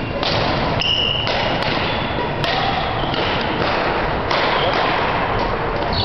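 Badminton play on an indoor court: thuds of shuttlecock hits and footwork over a steady noisy background.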